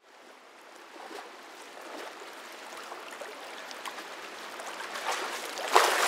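Water splashing and trickling that fades in and grows steadily louder, with a sharper splash near the end.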